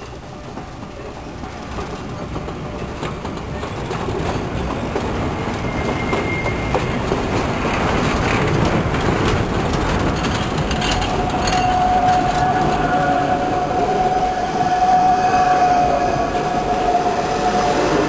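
Train of the Rorschach-Heiden mountain railway running, its electric railcar pushing wagons uphill, with the rumble and clatter of wheels on rails growing louder over the first few seconds. From about eleven seconds in a steady high-pitched whine rides over the running noise.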